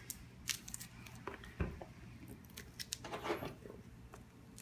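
Cardboard game box being worked open by hand: light clicks, scrapes and rustles of the lid and card stock, with a soft thump about a second and a half in.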